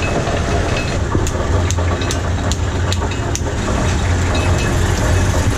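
An engine running steadily with a low hum, with a quick string of sharp clicks about one to three and a half seconds in.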